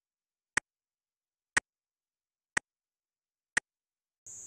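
Countdown timer sound effect: sharp clock-like ticks, one a second, four in all, with dead silence between them.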